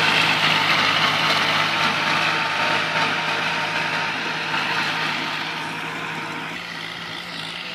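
Kubota L3608 tractor's diesel engine running steadily under load as it pulls a disc harrow through dry soil, fading as the tractor drives away.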